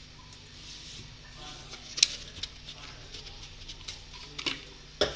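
A few sharp clicks and knocks of a utensil against the metal cooking pot, with a faint hiss underneath. The loudest knock comes about two seconds in and another cluster comes near the end, as oil is drizzled over the rice layer of a biryani before dum.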